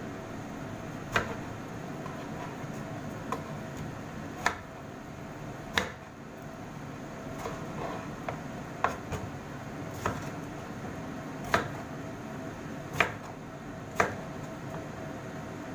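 Kitchen knife slicing through tomatoes and knocking on a wooden cutting board: about ten sharp knocks at uneven intervals, over a faint steady hum.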